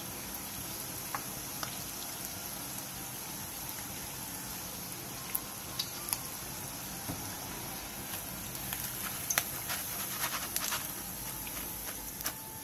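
Battered duck tenderloin strips deep-frying in hot oil in a frying pan: a steady sizzle of bubbling oil during the second, high-heat fry that turns the batter golden and crisp. Scattered sharp clicks run through it, most of them near the end.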